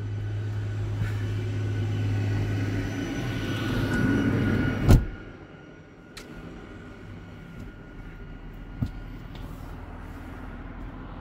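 A car's engine running close by and growing louder, then a sharp knock about five seconds in, after which only a faint hum and a few light clicks remain.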